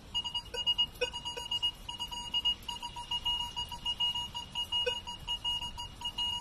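Minelab Vanquish 440 metal detector giving a high target tone as its coil sweeps over a target, a rapid run of short beeps. The tone signals a target ID of about 29 to 31.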